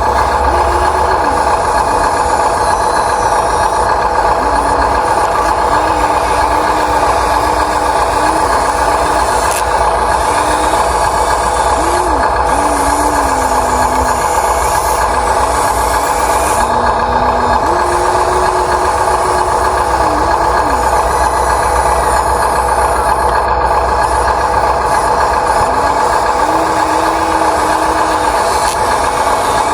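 Huina 1593 radio-controlled excavator working: a steady mechanical whine, with a lower tone that keeps stepping up and down in pitch as its movements change. A low hum underneath stops about four-fifths of the way through.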